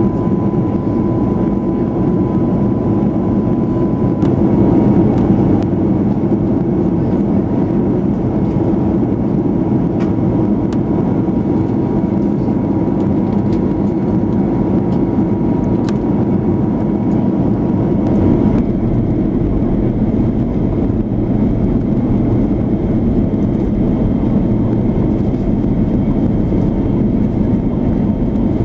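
Airbus A330 cabin noise on descent: the jet engines and the airflow past the fuselage make a steady, even rush. A faint high whine runs through it and stops about two-thirds of the way through.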